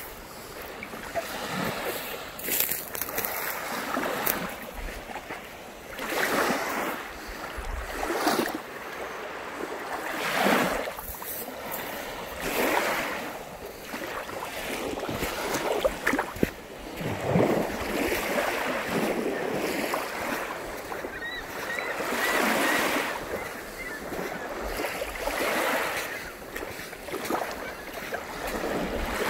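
Small lake waves washing onto a sandy shore, with wind buffeting the microphone in gusts that swell and fade every couple of seconds.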